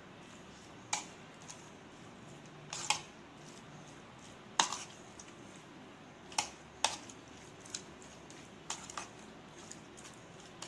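Steel spoon stirring raw prawns with spice paste in a plastic bowl. It makes irregular sharp clicks and taps against the bowl, about one a second, with soft squishing in between.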